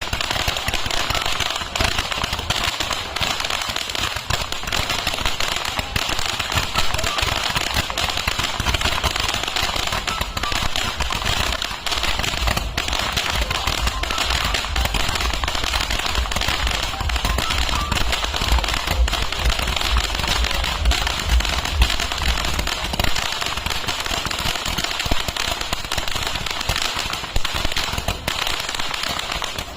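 A 288-shot firework cake firing rapidly, its shots following one another so fast they run together into a continuous crackling barrage. A low rumble beneath it drops away about three-quarters of the way through.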